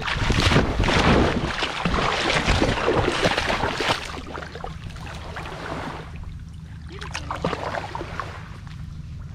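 Shallow water splashing and sloshing as a golden retriever puppy runs and wades through it, heard from a GoPro strapped to the dog's harness. Loudest over the first four seconds, then quieter sloshing with small scattered splashes.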